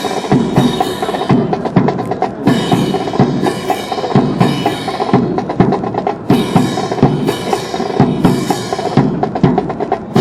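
Brass band playing with drums keeping a steady, driving beat: sustained band tones under regular drum strokes and bright crashes.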